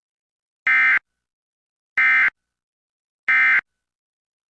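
Emergency Alert System end-of-message (EOM) signal: three short bursts of SAME digital data tones, each about a third of a second long and about a second and a half apart. These bursts mark the end of the Required Monthly Test message.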